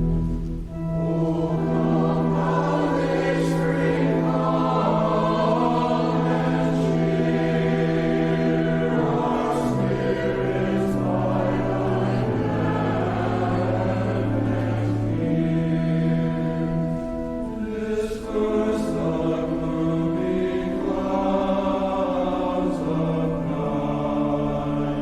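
Church choir singing an anthem in parts, with sustained instrumental accompaniment holding long low notes beneath the voices.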